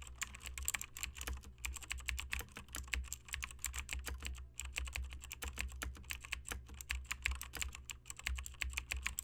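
Rapid, irregular typing on a computer keyboard, many keystrokes a second, with a few short pauses.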